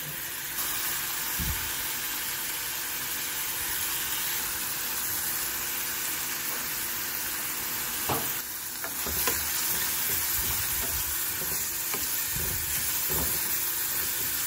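Diced carrots sizzling in a little oil in a metal frying pan, stirred with a wooden spatula that scrapes and knocks against the pan now and then.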